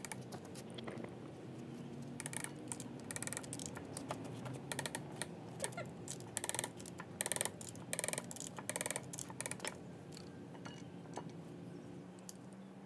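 Socket ratchet clicking in short rapid bursts as the bolts of a marine gearbox's coupling drive gear are turned in. The clicking stops a few seconds before the end.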